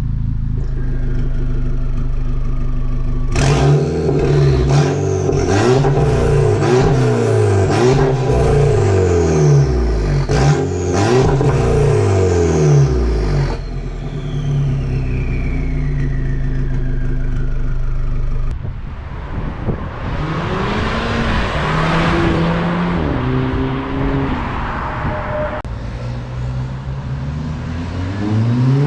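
Volkswagen Golf GTI engine and exhaust in a run of short clips, some on the stock exhaust and some on a 3-inch custom straight-pipe exhaust with no dampers. It idles, then is revved up and down repeatedly for about ten seconds with sharp cracks between revs. In the last part it accelerates with a rising note over rushing noise.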